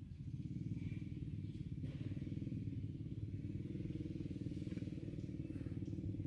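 An engine running steadily, a low, evenly pulsing rumble.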